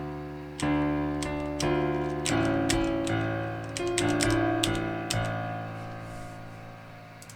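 Virtual piano played from a computer keyboard: a short melody of piano notes and chords, each with the clack of the computer key that triggers it. The last chord, about five seconds in, rings on and fades away.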